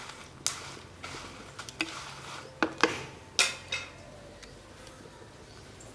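Wooden spatula stirring dry red chillies roasting in a pot over a wood fire, knocking and scraping against the pot several times, with the sharpest knocks between about half a second and four seconds in, then quieter.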